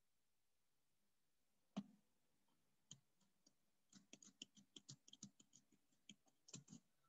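Near silence broken by faint, sharp clicks: one about two seconds in, another a second later, then a fast, irregular run of clicks from about four seconds until near the end.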